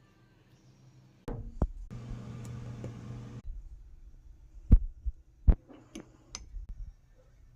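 Kitchen knocks and clicks around a steady electric hum that lasts about a second and a half, typical of a microwave oven running briefly between its door being shut and opened. A knock comes just before the hum, and several sharp knocks follow in the second half.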